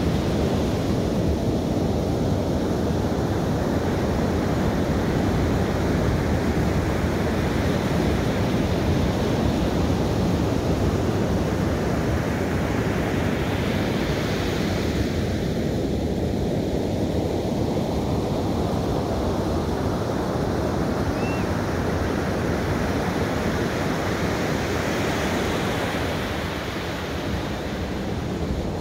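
Ocean surf breaking and washing up a sandy beach: a steady rush that swells twice as waves break, around the middle and again near the end.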